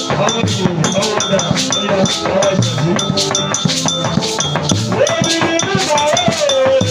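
Church band music: a cowbell and drums beat a fast, steady rhythm over held chords. About five seconds in, a melody line glides up and holds.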